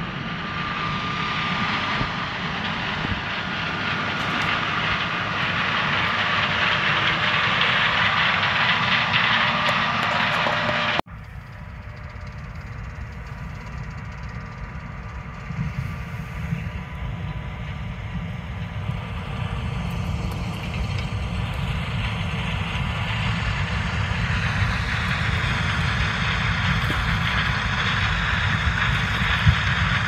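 Road and wind noise from a moving car, growing louder and cutting off suddenly about eleven seconds in. Then a John Deere S670 combine harvesting corn: a steady drone of engine and threshing machinery that grows slowly louder as the combine comes closer.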